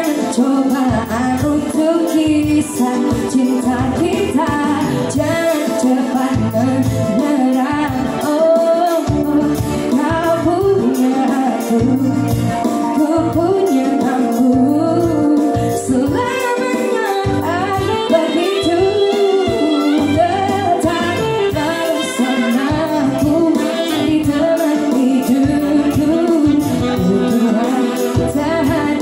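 A woman singing a pop ballad live into a microphone through a PA, backed by a single electronic keyboard (organ tunggal) playing chords, bass and a steady beat.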